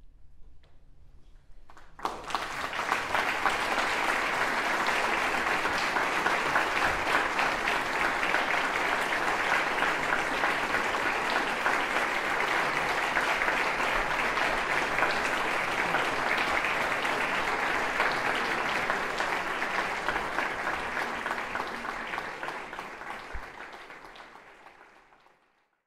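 Audience applauding, starting suddenly about two seconds in and fading out near the end.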